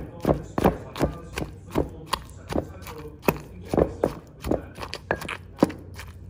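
Wooden pestle pounding roasted eggplant and tomatoes in a clay mortar: a steady run of dull knocks, about two to three a second.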